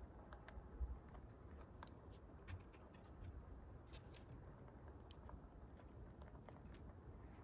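Faint, scattered small clicks and crunches of rabbits nibbling and shifting about in a wire-floored hutch, with a soft low bump about a second in.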